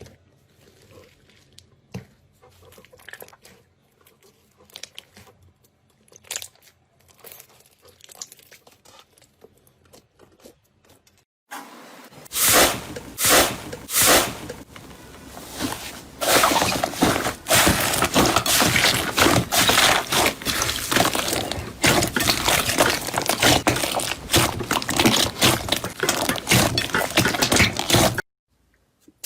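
Slime being squeezed and worked by hand: faint sticky clicks at first, then, about eleven seconds in, loud dense crackling and popping that cuts off suddenly near the end.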